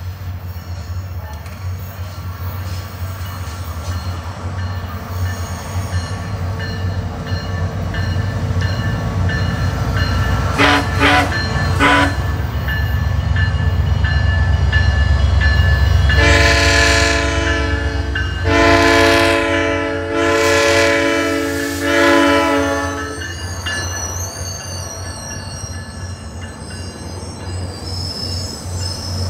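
SunRail commuter train approaching with a steady rumble, sounding its multi-chime horn: three short toots about 11 s in, then several long loud blasts. Near the end a wavering high squeal comes from the wheels as it slows into the platform.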